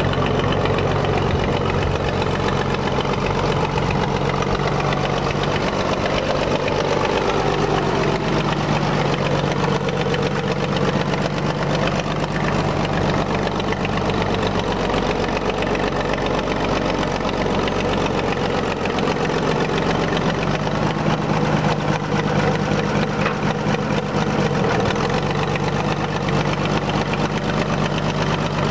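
1939 Oliver 70 Row Crop tractor's six-cylinder engine running steadily at low speed while the tractor is driven slowly around the yard.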